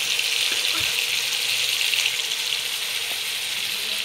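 Marinated chicken tikka pieces frying in a mix of butter and oil over a medium-high flame, a steady sizzle.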